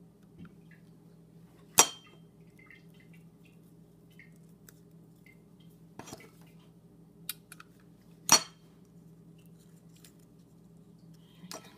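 Hard plastic clacks of a hot glue gun being set down and handled on a countertop: two loud sharp clacks and a few lighter clicks, over a faint steady hum.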